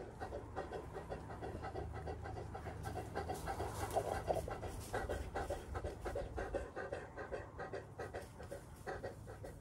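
Cane Corso panting steadily with quick, even breaths, mouth open, right next to the microphone.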